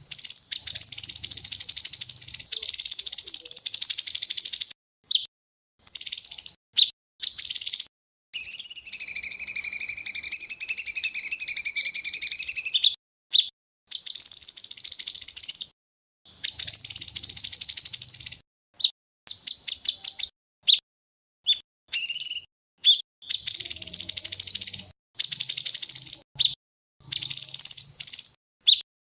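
Edited songbird-training recording: fast, high-pitched chattering trills of songbird 'tembakan' (rapid-fire) song, chopped by abrupt silent gaps, with one long wavering whistle about nine to thirteen seconds in.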